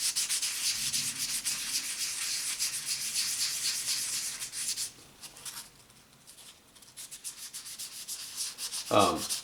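800-grit wet sandpaper scrubbed in rapid back-and-forth strokes over an aluminum heat sink, a fast, hissy rasping. This is wet sanding to smooth out gouges before polishing. The strokes stop for about two seconds around the middle, then start again.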